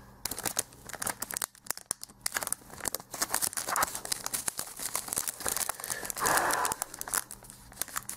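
Foil Yu-Gi-Oh! booster-pack wrapper crinkling and crackling in the hands as the cards, stuck inside, are worked out of the torn-open pack. There is a longer rustle about six seconds in.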